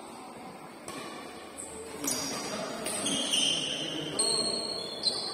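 Badminton rally: four sharp racket strikes on a shuttlecock, about a second apart, with high sneaker squeaks on the court between them and voices in the hall.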